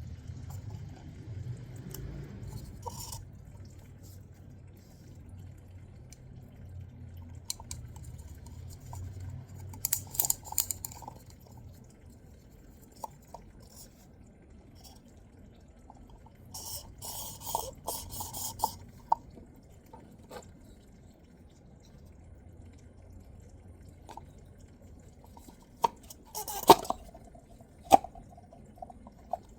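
Engine oil dripping and trickling, with occasional clatter and a few sharp knocks near the end.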